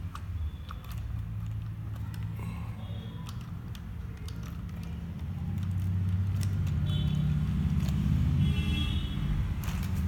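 A 1:18 scale RC rock crawler driving: its small electric motor and gears hum and whine, with scattered clicks. The hum grows louder about halfway through, and a high whine rises over it twice near the end.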